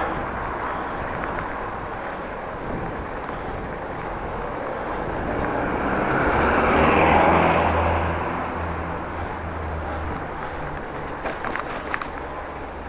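A motor vehicle passes close by, its engine hum and tyre noise swelling to a peak about seven seconds in and then fading, over the steady rushing noise of a bicycle ride. A few light clicks come near the end.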